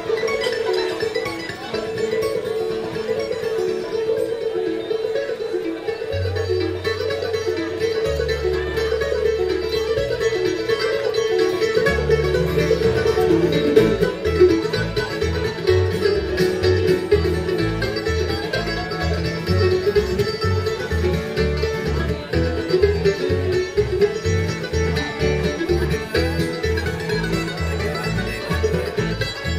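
Bluegrass instrumental music with picked strings. A bass line comes in about six seconds in and then keeps a steady beat.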